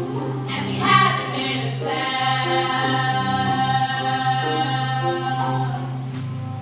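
Chorus of teenage girls singing together in harmony, holding long notes, loudest about a second in.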